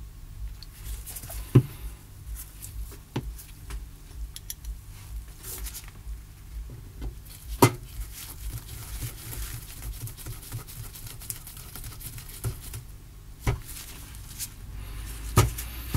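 Small objects being handled at close range: scattered clicks and taps, the loudest about one and a half, seven and a half and fifteen and a half seconds in, over a low steady hum.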